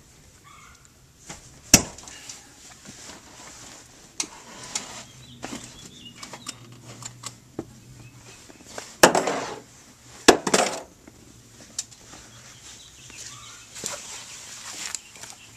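2004 Toyota Camry rear seat cushion being pulled free: its retaining clips let go with sharp snaps, one about two seconds in and two more around nine and ten seconds in, each followed by the fabric cushion rustling and scraping as it is lifted up and forward.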